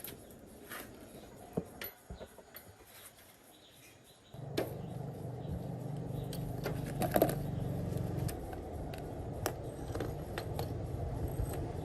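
Metal clicks and clinks from tools and parts being handled. About four seconds in, a steady low machine hum starts suddenly and carries on under further clicks.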